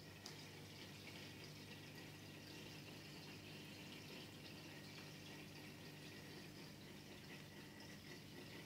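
Faint, steady trickle of aquarium filter water, over a low steady hum.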